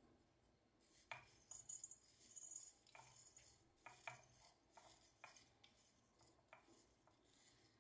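Dry loose tea leaves sliding off a tea scoop and dropping into a small clay teapot: faint, crisp rustling with scattered light ticks, starting about a second in and coming in irregular little pours.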